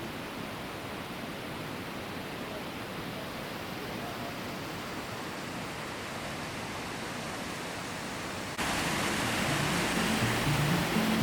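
Steady rushing of stream water. About eight and a half seconds in, it cuts abruptly to louder rushing water, and background music with low stepping notes comes in.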